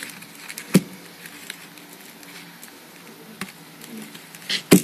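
Fingers picking at the ribbon knot on a packaged chocolate bar: light scratching and rustling of ribbon and card with scattered small clicks, a sharp tap about a second in and a louder double knock near the end.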